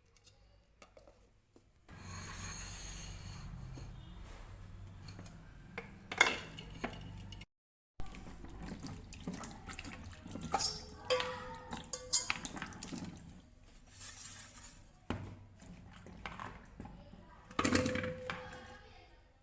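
Kitchen work sounds: a stretch of steady running water, then dishes and utensils clinking and knocking at irregular intervals.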